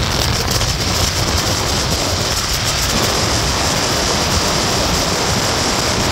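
Steady wind rushing over a phone microphone on a moving motorbike, with motorbike and road noise underneath.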